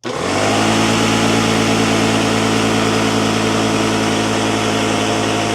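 Air compressor's electric motor running with a steady hum, starting suddenly.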